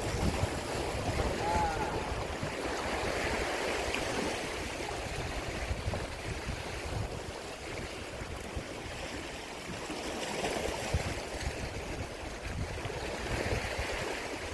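Sea waves washing on the shore, swelling and easing every few seconds, with wind gusting on the microphone.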